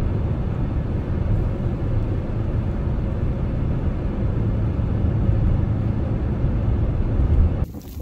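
Snowplow truck driving past on a snow-covered road: a steady low rumble of its engine and tyres mixed with wind. It cuts off abruptly near the end.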